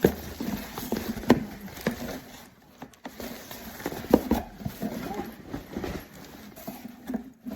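A fabric duffel bag being handled: rustling with scattered knocks and taps, the sharpest about a second in and again about four seconds in.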